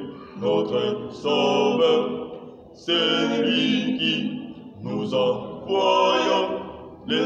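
Small mixed choir of men and women singing a French hymn unaccompanied, in phrases with short pauses between them.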